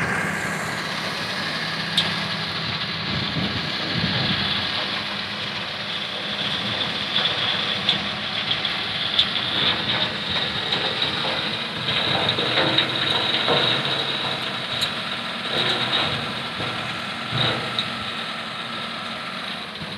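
Ashok Leyland tipper truck's diesel engine running steadily while the loaded body is raised to tip, with scattered clicks and rattles of soil and stones sliding off the back in the second half.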